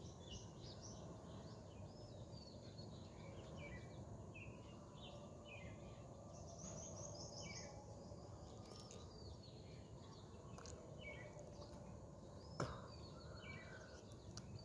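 Faint chirping of small birds, repeated throughout over a low steady background noise, with one sharp click near the end.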